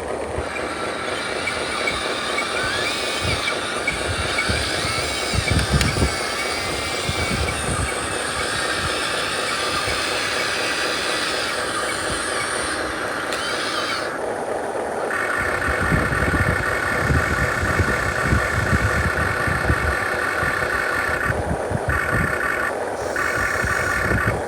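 Radio-controlled truck running, with a steady mechanical whine and a rough rumble from the drivetrain and wheels. It grows louder about fifteen seconds in.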